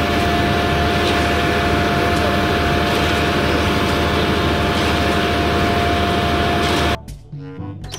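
Concrete mixer truck running steadily while it discharges concrete down its chute: a constant engine-and-drum din with a steady whine through it. It cuts off abruptly about a second before the end.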